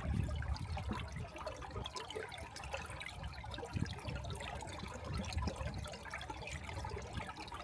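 Water running and splashing at the foot of a partly frozen waterfall: a steady rushing noise with a low rumble underneath.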